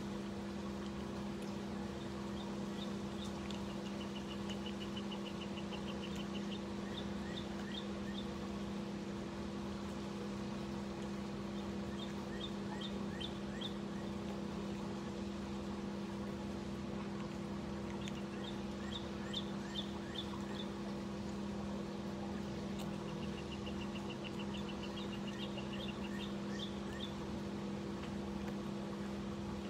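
A steady low mechanical hum, with a songbird singing several times over it: short groups of high chirps and a fast high trill.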